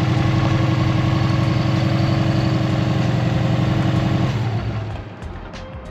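2002 Subaru WRX's turbocharged 2.0-litre flat-four idling steadily with a slight tick and no belt squeal, then switched off a little over four seconds in, the idle note dying away. The owner takes the tick as normal for these engines.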